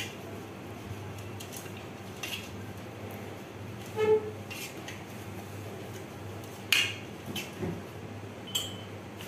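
Aluminium pot being greased inside with a silicone pastry brush: light brushing with a handful of scattered clinks and knocks of the metal pot, one about four seconds in ringing briefly and the loudest near seven seconds. A low steady hum runs underneath.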